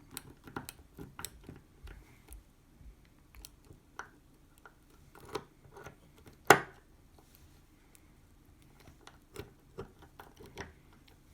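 Irregular small clicks and taps of metal lock parts being handled as the lock's plug and follower are worked back into the housing, with one sharp, louder click about six and a half seconds in.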